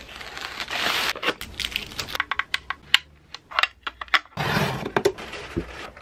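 Close-miked unboxing sounds: plastic packaging rustling and crinkling, in two spells about a second in and again past the middle. Between and after them come many quick clicks and taps of hands on a hard plastic device and cardboard.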